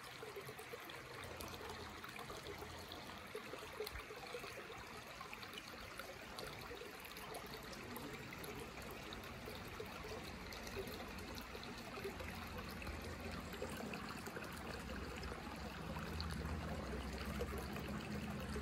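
Shallow river water trickling steadily over rocks, with a low rumble building in the second half.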